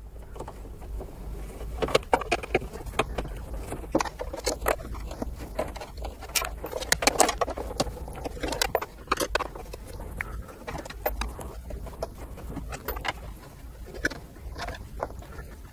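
Hand screwdriver work on a car's centre-console trim frame: irregular clicks, small scrapes and rattles of screws and plastic parts over a low steady hum.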